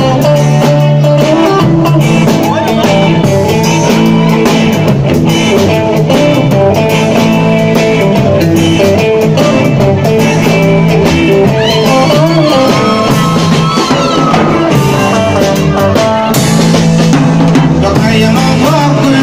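Live band playing loud: electric guitar and bass guitar over a drum kit with cymbals, with a keyboard on stage.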